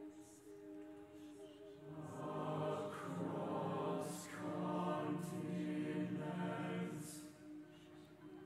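Mixed-voice choir singing a cappella, holding slow sustained chords that swell about two seconds in and soften near the end.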